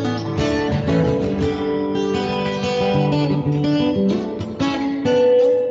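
Instrumental break music led by strummed guitar, chords changing every half second or so, with one note held near the end.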